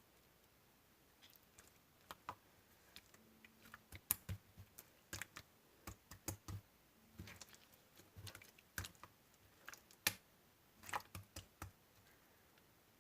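Slime being pressed and squished by hand, giving irregular quick sticky clicks and small pops.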